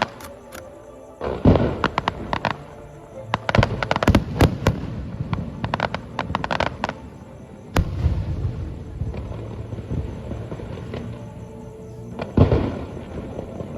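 Aerial fireworks display heard from a few hundred metres away: dense crackling and popping throughout, with heavy shell bursts about a second in, near the middle and near the end.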